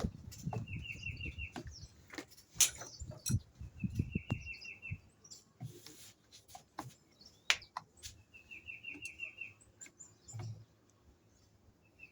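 A bird repeating a short, rapid trilled phrase of high chirps about every four seconds, four times, with scattered clicks and knocks of handling in between.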